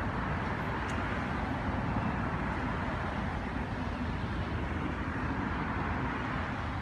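Steady outdoor background rumble and hiss, with no distinct event in it.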